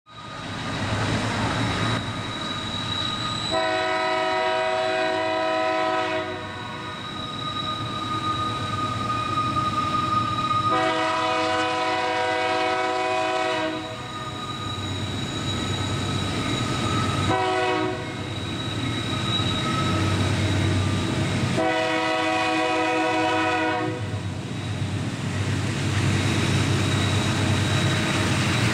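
Diesel locomotive's multi-tone air horn sounding four blasts, long, long, short, long, over the steady rumble of the approaching train.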